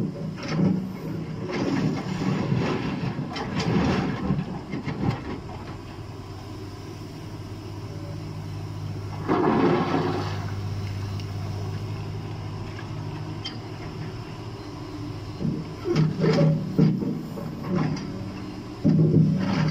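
Liebherr 944 hydraulic excavator's diesel engine running steadily under load, with the steel bucket scraping and clattering through broken rock in the first few seconds. About nine seconds in, a bucketload of stones pours out in a loud rattling rush. Near the end the bucket digs into the rock pile again with more clatter.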